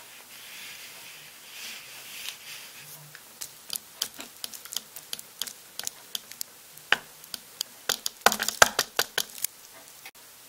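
A soft hiss, then a run of irregular sharp crackles and clicks that grow dense and loudest a little past eight seconds in.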